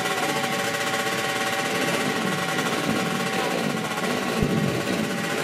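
Underbone drag-racing motorcycle engine held at steady high revs at the start line, a fast even buzzing note waiting for the launch.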